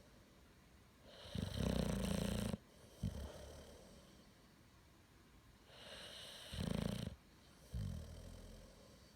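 Heavy snoring in slow, loud breaths with a buzzing low tone. A long snore comes about a second in, followed by a short one. Another comes around six seconds in, followed by a longer one that fades out.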